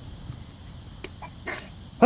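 A young child sneezes once, a short sharp burst about one and a half seconds in.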